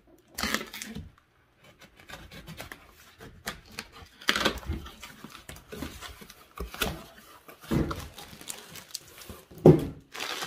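Cardboard shipping box being opened by hand: a blade slitting the packing tape, the flaps pulled open and the cardboard scraping and rustling in irregular bursts. A louder knock comes near the end as the inner box is lifted out.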